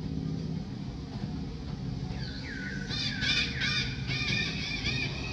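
Baby macaque crying: a run of high-pitched, rapidly rising-and-falling squealing calls, several a second, starting about two seconds in and loudest in the middle, over a steady low hum.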